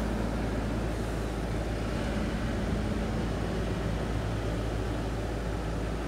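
Outdoor unit of an Emailair split-system air conditioner running: a steady low hum of compressor and fan under an even whoosh. The unit is running but not cooling properly, with a faulty Schrader valve on its refrigerant service port.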